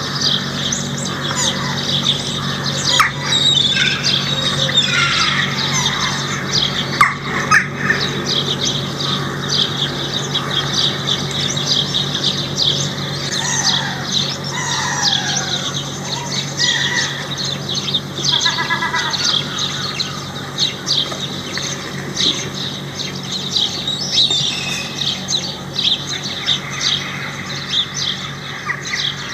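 Many birds calling at once: a dense, unbroken chatter of short calls and quick pitch glides, over a steady low hum.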